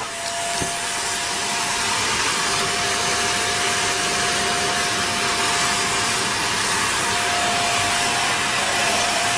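Vacuum cleaner running steadily with a constant whine, its brush nozzle being run over a cat's fur.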